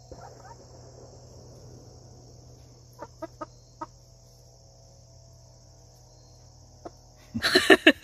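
Hens clucking: soft low murmuring at first, a few short clucks after about three seconds, then a sudden loud burst of squawking clucks near the end. A steady high insect chirring runs behind.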